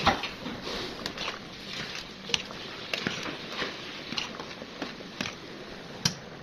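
A metal spatula stirring rice in a pot of boiling water, knocking and scraping against the aluminium pot now and then over the bubbling of the water, with a sharper knock at the very start.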